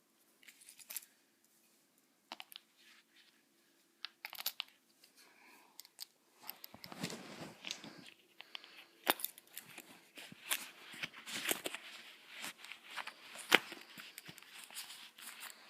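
Box contents and packaging being handled: a few scattered clicks and taps at first, then from about six seconds in steady rustling and crinkling mixed with sharp clicks.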